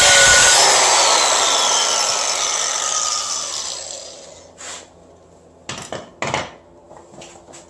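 Angle grinder with a cut-off wheel cutting the aluminium case of a Mazda Miata transmission. It stops cutting about half a second in and spins down over a few seconds with a falling whine. A few short knocks follow past the middle.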